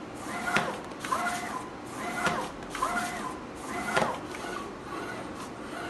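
Automatic decal cutting machine running: its stepper motors whine up and down in pitch as the cutting head and sheet move, with three sharp clicks about 1.7 s apart.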